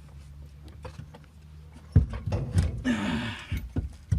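Metal clunks and knocks as a rear differential is jacked up and worked into its mounts, starting about two seconds in, with a short strained grunt of effort near three seconds.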